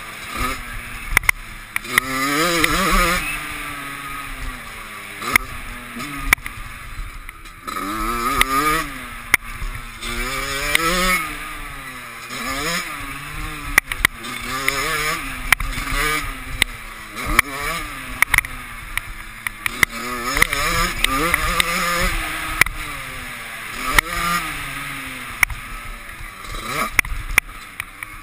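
Motocross dirt bike engine heard on board, revving up and dropping back again and again as it runs around the track, its pitch climbing and falling every couple of seconds. Many sharp knocks come through as the bike rides over the rough ground.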